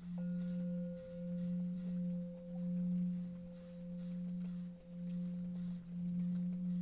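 Meditation background tones: a steady low drone that swells and fades slowly, joined about a quarter second in by a higher ringing tone that is struck and then held.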